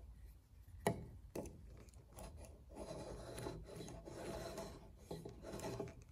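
Wooden marking gauge drawn along the edge of a timber blank, its pin scribing a line while the stock rubs against the face edge: a faint, steady scraping of wood on wood. A single sharp knock about a second in.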